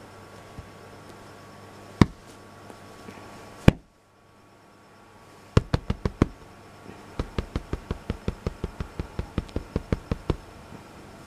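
Sharp knocks. Two come singly, then after a brief near-silent gap there is a quick group of four. From about halfway in, a steady run of about five knocks a second lasts some three seconds.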